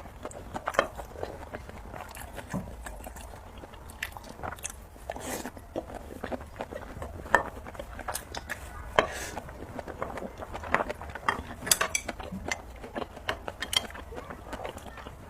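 Close-miked eating of spicy noodles: chewing and biting with wet mouth clicks and smacks coming at irregular intervals.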